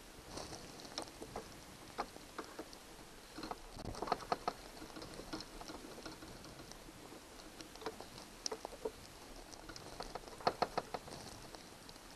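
Hand screwdriver working screws loose on a camper door lock: scattered small metal clicks and scrapes, with quick runs of clicks about four seconds in and again near the end.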